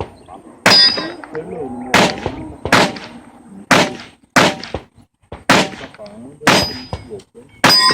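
A handgun fired eight times at uneven intervals during a timed competition stage. Some of the shots are followed by a short metallic ring.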